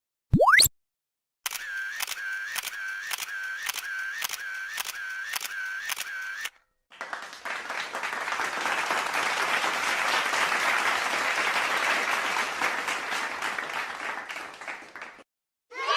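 A run of separate meme sound effects. First a quick sharp rising whistle. Then about five seconds of rhythmic clicking, about two and a half clicks a second, like a camera shutter firing over and over. Then about eight seconds of applause.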